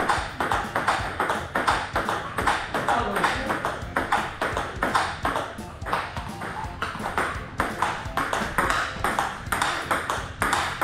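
Table tennis rally: the ball clicking off the paddles, one of them faced with DHS Hurricane provincial-team rubber on a Kyohyo Ryu 5 blade, and bouncing on the table. The sharp pings come in quick, fairly even succession.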